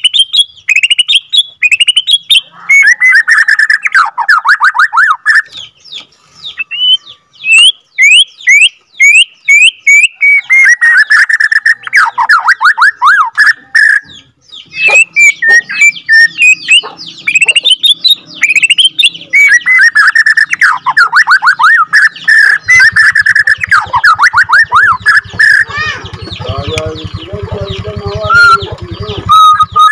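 White-rumped shama (murai batu) singing: strings of quick sweeping whistles alternate with long, fast rolling trills. Over the last several seconds a low buzzing rattle runs beneath the song.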